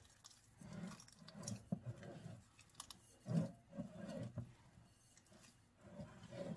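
Hands kneading soft donut dough in a ceramic bowl: faint, irregular squishing and pressing, with a few clicks.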